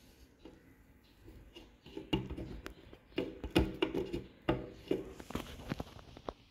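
Wooden casement window being swung shut: a run of clicks, knocks and creaky rubbing from the wooden frame and its metal stay arm, busiest from about two seconds in to near the end.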